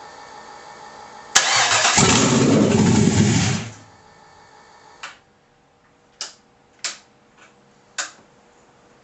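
A 5.7 L LS1 V8 on an engine stand is cranked and coughs into life for about two seconds, then dies. It will not stay running, which the owner puts down to the PCM needing a retune. A few sharp clicks follow after it stops.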